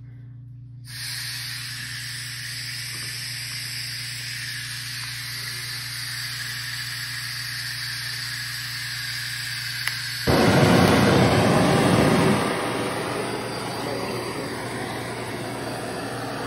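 Handheld gas torch hissing steadily as it is played over a wet acrylic pour canvas, starting about a second in. After a faint click it swells into a louder, fuller rush for about two seconds, then settles back to a hiss.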